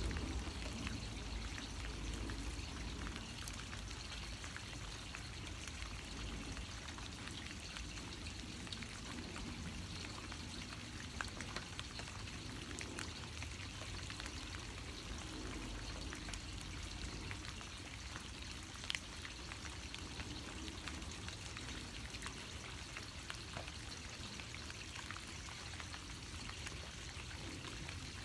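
Steady rain falling, an even hiss with scattered ticks of individual drops and a couple of sharper drop hits.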